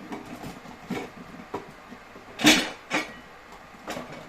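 Orange with its peel on being put into a container, heard as a handful of knocks and clatters, the loudest about halfway through.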